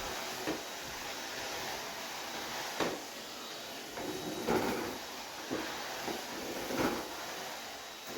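Several short knocks and clunks of kitchen cleaning work, things being handled and set down, over a steady hiss.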